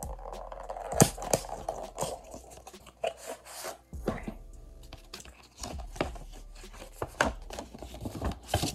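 A phone-case delivery package being torn open and handled: tearing and crinkling of packaging with many sharp clicks and rustles, and a loud snap about a second in.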